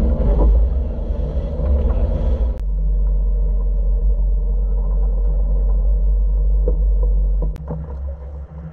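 Fishing boat's engine running under way, a steady low rumble; the sound changes abruptly about two and a half seconds in, and it drops in level near the end.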